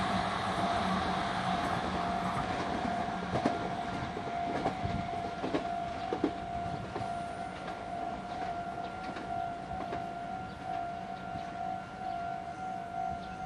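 Japanese level-crossing warning bell ringing on, a steady electronic ding repeating at an even pace, still sounding after a red Meitetsu train has passed. The train's running noise fades over the first few seconds as it moves away, with a few short clacks.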